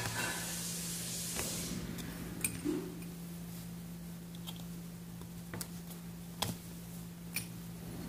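Scattered sharp little clicks and taps of fingers and a small tool on the brass parts of an antique mechanical alarm clock movement being taken apart, over a steady low hum, with a brief hiss near the start.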